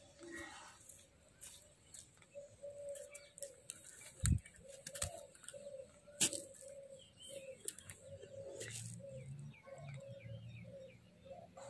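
Pigeons cooing over and over, with small birds chirping now and then. Two sharp knocks, the loudest sounds, fall a little before and just after the middle, and a low hum comes in later.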